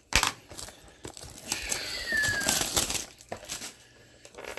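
Plastic wrap crinkling and tearing as a sealed trading-card box is opened, with scattered clicks and a brief falling squeak about two seconds in.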